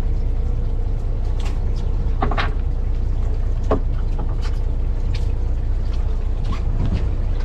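Fishing boat's engine running with a steady low drone, with a few short clicks and knocks over it.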